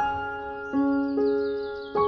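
Background music: gentle piano or keyboard notes struck every half second or so, each ringing and fading.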